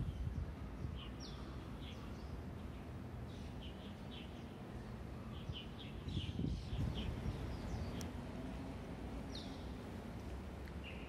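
Small birds chirping in short, scattered calls over a steady low background rumble of outdoor noise, which swells briefly about six seconds in.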